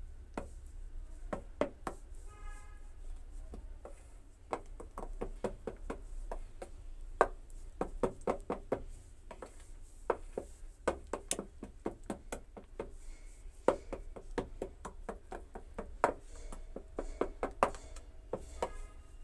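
Metal spoon stirring thick moong dal batter in a stainless steel bowl, clinking and tapping against the bowl's sides in irregular sharp knocks.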